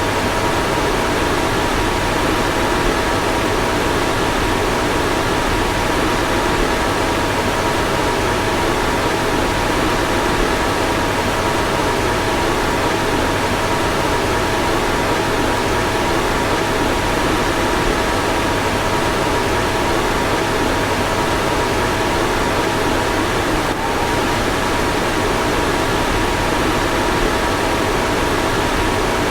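Car ventilation blower fan running steadily: an even rush of air with two faint steady tones in it. A brief click comes about three-quarters of the way through.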